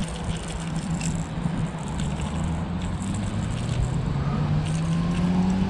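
A motor vehicle's engine humming steadily, its pitch rising slowly toward the end, with light scattered clicking and rattling.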